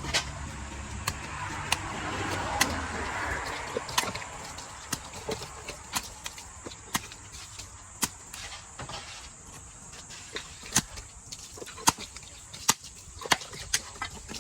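A knife or cleaver chopping through a large catla fish on a cutting block: sharp knocks coming irregularly, about one or two a second. Passing traffic is heard under the first few seconds and fades out.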